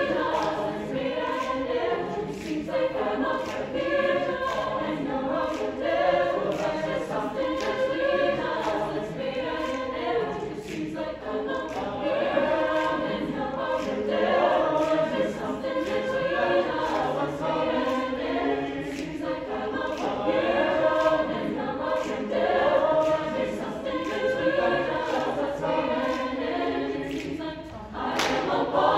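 Mixed choir singing a cappella in a sustained passage without clear words. Near the end the singers begin clapping in rhythm.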